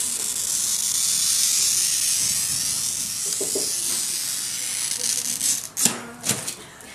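Glass cutter's wheel scoring a long line across a sheet of glass, guided along a glass template: a steady high hiss that fades out a little before six seconds. Two sharp clicks follow near six seconds.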